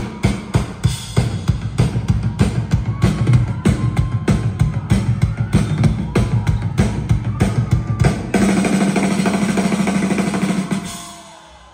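Live rock band playing an instrumental passage: a driving drum-kit beat, about four hits a second, under electric guitars and bass. About eight seconds in the beat stops and gives way to one long held, noisy chord with cymbals, which dies away near the end.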